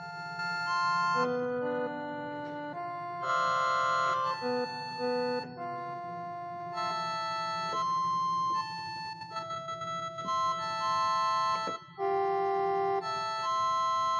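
Background instrumental music: a slow melody of long held keyboard notes, organ-like in tone.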